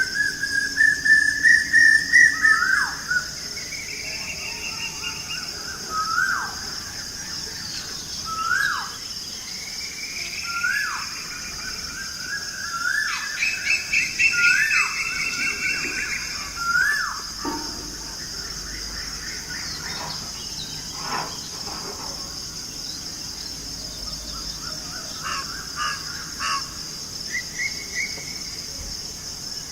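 Wild birds calling. One repeats a short whistled note with a quick downward drop at the end, about every two seconds for the first half, among bursts of faster chirping from other birds. Under it all runs a steady high-pitched insect drone.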